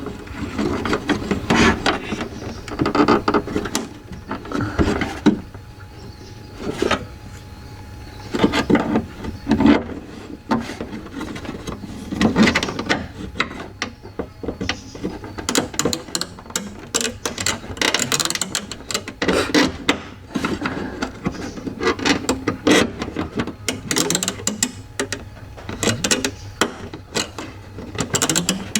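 Irregular clicking, rattling and scraping of a car window regulator's cable, pulleys and plastic clips being worked apart by hand.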